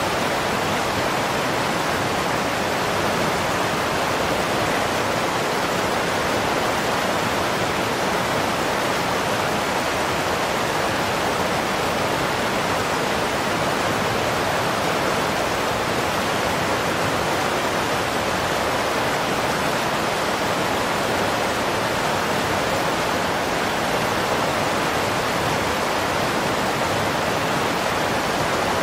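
Steady, unbroken rush of water like a river in flood, an even noise that does not change at all across the whole stretch.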